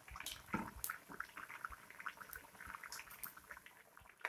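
Besan-battered potato pakoras deep-frying in hot oil in a kadhai: a quiet sizzle dotted with many small, irregular pops and crackles.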